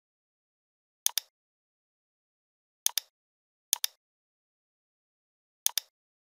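Computer mouse button clicked four times at uneven intervals, each click a quick press-and-release double tick, with silence between.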